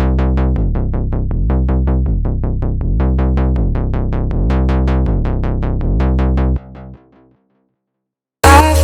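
Electronic background music: a run of short plucked synth notes over a steady low bass. It fades out about two-thirds of the way through, and after a second of silence a louder music track starts near the end.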